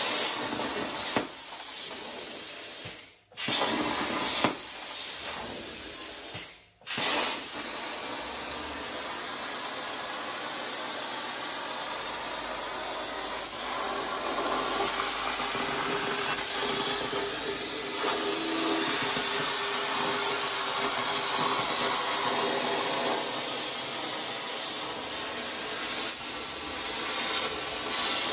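Plasma cutter torch on a CNC plasma table cutting sheet metal: a loud, steady hiss of the arc and its air stream. It cuts out briefly twice, about three and seven seconds in, and relights each time.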